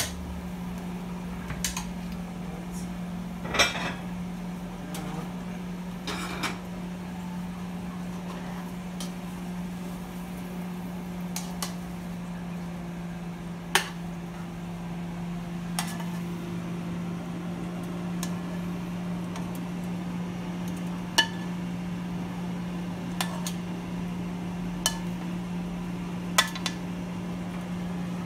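Metal tongs clinking and scraping in a nonstick wok as a stir-fry is pushed out onto a plate, with occasional sharp knocks of metal on the pan, over a steady low hum.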